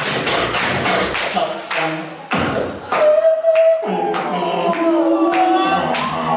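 Live beatboxing through a microphone. Quick percussive drum sounds come first, then about three seconds in a held, sung note over a low bass line, with the pitch sliding between notes.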